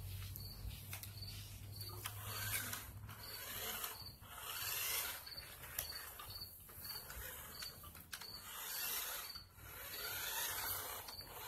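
Toy-grade RC truck's small electric motor and gearbox whirring as it drives back and forth on carpet, swelling and fading several times with each burst of throttle.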